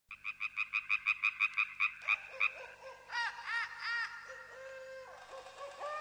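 Frogs calling: a fast, even trill of short chirps, about seven a second, for the first two seconds or so, then a few higher whistled calls that rise and fall.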